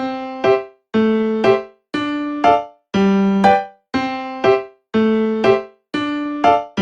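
Background music: a simple keyboard tune in a steady rhythm, two notes each second (a longer one, then a shorter one half a second later), each pair fading and breaking off briefly before the next.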